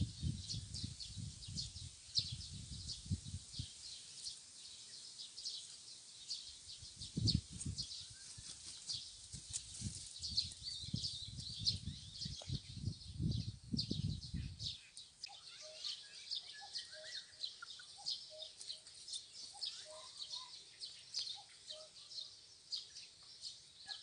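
Young Ameraucana chickens foraging, with a steady stream of short, high chirps and peeps. Low rumbles come in bursts through the first half, and soft low clucks come in the second half.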